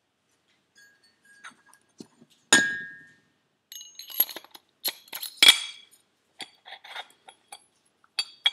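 Small metal clinks and taps of turbocharger parts being handled: one sharp clink with a short ring about two and a half seconds in, then a run of quick clinks and scrapes as the turbine wheel shaft, piston ring seal fitted, is slid into the bearing housing.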